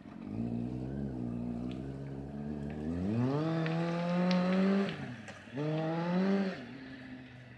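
Motorcycle engine accelerating: a steady low note that climbs in pitch about three seconds in, drops out for a moment near five seconds, then climbs again briefly before fading.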